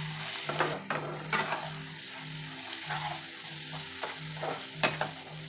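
Chicken pieces frying in oil in a non-stick kadai with a steady sizzle, while a plastic spatula stirs them, scraping and knocking against the pan several times. The sharpest knock comes near the end.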